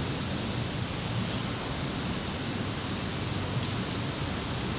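Steady, even rushing noise that does not change: outdoor background hiss.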